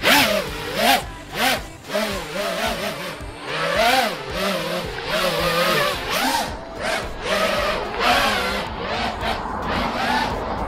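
FPV racing quadcopter's motors and propellers whining, the pitch swooping up and down in quick throttle blips, starting suddenly.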